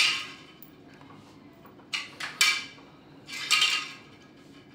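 Small metal screws being handled, clinking against each other and a hard surface in three or four short clinks with a light ring.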